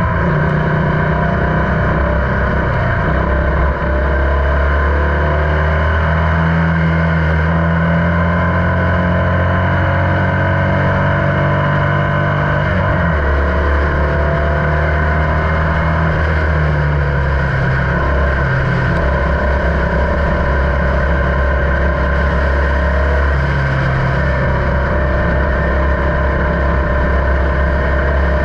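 Formula Vee's air-cooled Volkswagen flat-four engine running hard at racing speed, heard onboard. Its pitch climbs steadily over several seconds, breaks briefly about thirteen seconds in, then climbs again.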